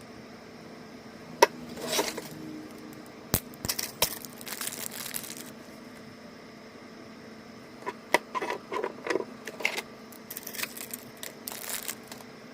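Small toy pieces being handled: scattered sharp clicks and taps, a quick cluster of clicking and rustling near the end.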